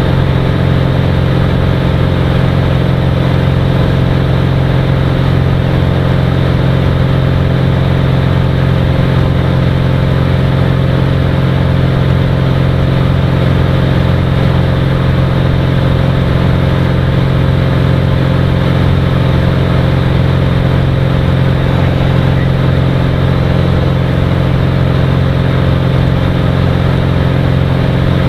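Cirrus SR20's single piston engine and propeller running at a steady, unchanging power, heard loud from inside the cockpit.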